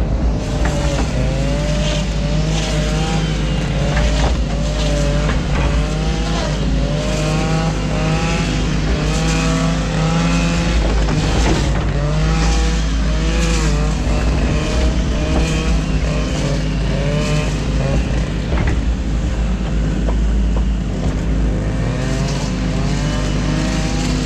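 New Holland Kobelco E 50.2 mini excavator running under load, heard from the cab: a steady diesel hum with a hydraulic whine that rises and falls in pitch over and over as the arm and ditch bucket move, and scattered knocks.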